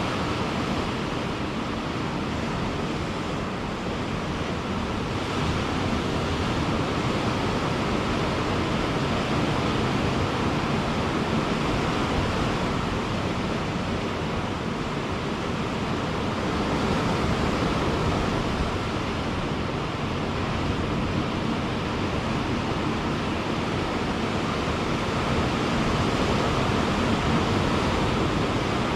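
Ocean waves breaking and washing on a beach: a continuous surf rush that swells and eases every several seconds.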